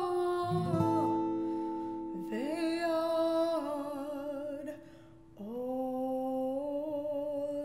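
A woman singing a slow Hebrew song, holding long notes with a slight vibrato, to her own acoustic guitar accompaniment. About five seconds in, the voice and guitar briefly fall away before the next phrase starts.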